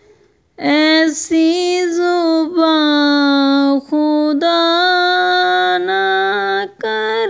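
A naat sung by a single voice, holding long melodic notes that bend and waver, after a short pause at the start.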